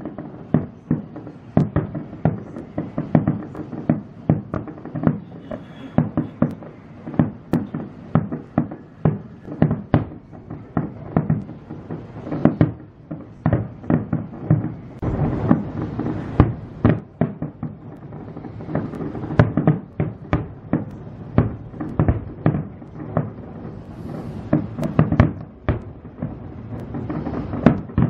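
Aerial firework shells bursting in rapid succession: a continuous barrage of booms and bangs, several a second, growing denser about fifteen seconds in and again near the end.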